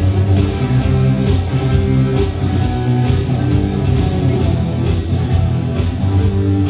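Small vocal-instrumental band playing a rock song: guitars over a steady bass line and beat.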